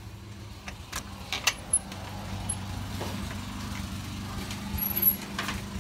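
A steady low mechanical hum that grows louder about two seconds in, with several sharp clicks and knocks of handling in the first two seconds and another near the end.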